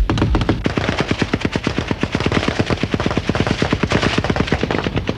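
Automatic weapon fire in one long sustained burst: rapid, evenly spaced shots that keep going without a break.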